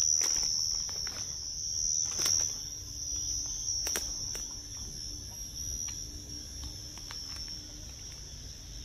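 Night insects trilling steadily in one high-pitched band. A few sharp clicks break in over the first four seconds.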